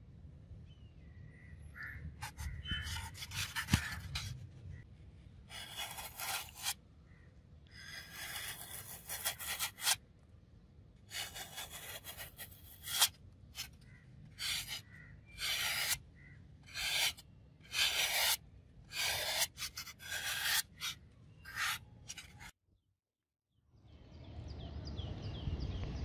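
A steel knife blade with a serrated spine slicing through a thin green foam sheet, in about a dozen short scraping strokes with brief pauses between them.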